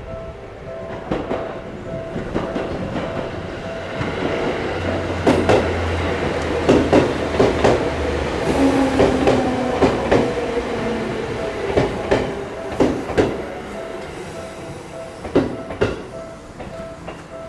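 Japanese level-crossing warning bell ringing in a steady, evenly repeating two-tone pattern while an electric train passes over the crossing. The train is loudest from about 4 to 14 seconds in, with a low rumble and sharp clacks of the wheels over rail joints that partly drown out the bell.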